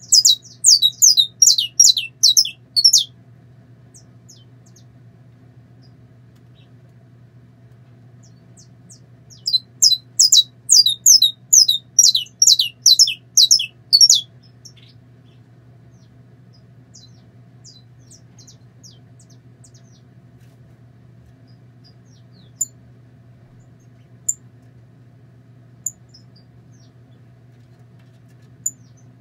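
Saffron finch singing two phrases of rapid, repeated high notes that each sweep downward: one ending about three seconds in, another from about ten to fourteen seconds in. A few single short ticks follow in the second half.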